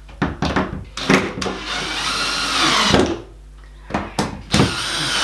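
Cordless drill-driver running in a few short bursts and two longer runs, driving the screws that clamp an in-ceiling speaker into the plasterboard ceiling. The first long run sags in pitch as it ends.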